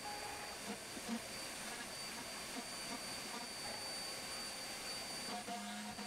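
CNC router running its job: a steady hiss with a thin high whine from the spindle and dust extraction, and a low motor hum that comes and goes as the gantry moves, louder near the end.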